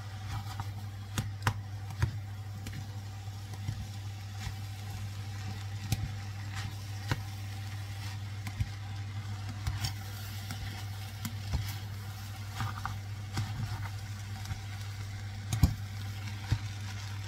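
White plastic spatula stirring fried rice in a large non-stick pot, with irregular scrapes and knocks against the pot, one louder knock near the end. A steady low hum runs underneath.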